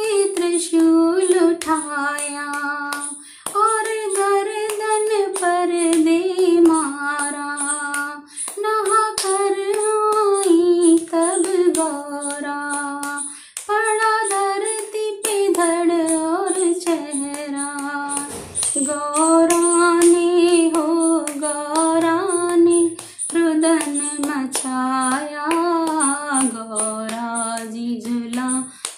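A woman singing a Hindi devotional bhajan solo, in phrases of a few seconds each with short breaks between them.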